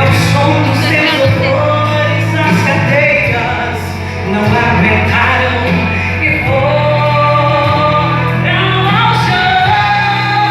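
Youth group singing a gospel worship song with instrumental accompaniment, steady bass notes held beneath the voices.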